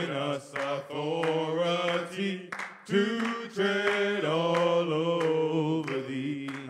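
Men's voices singing a gospel song together, a cappella, with long held notes, over hand clapping.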